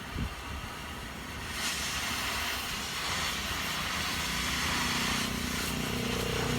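A vehicle's engine rumbling, with a steady hiss that comes in about one and a half seconds in and holds, and a low engine hum rising beneath it toward the end.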